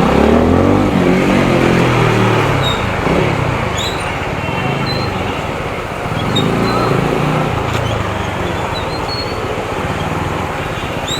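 TVS Apache RTR 200 motorcycle engine running on the road under wind noise, its pitch rising as it accelerates in the first couple of seconds and again about six seconds in.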